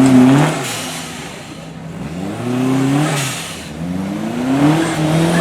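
Off-road 4x4's engine revving in surges. The revs fall away about a second in, then climb again twice.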